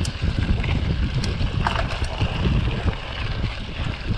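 Mountain bike ridden down a dirt road: wind buffeting the microphone over the rumble of tyres rolling on dirt and gravel, with a few sharp clicks and rattles.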